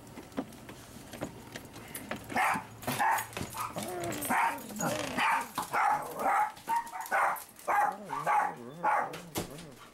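A dog barking in a quick series of about a dozen short barks, starting a couple of seconds in.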